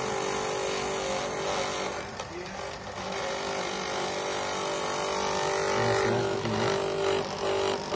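Honsu electric coconut grater running: its electric motor hums steadily with a few held tones while the spinning toothed drum grates pieces of coconut flesh pushed into it with a spoon.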